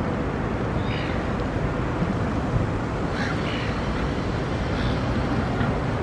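Steady low rumble of wind and city traffic, with a few short, faint bird calls from the flock of pigeons and silver gulls.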